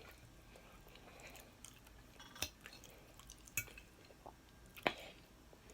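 Cutlery clinking against a dish while eating chicken pot pie, three short sharp clinks a little over a second apart.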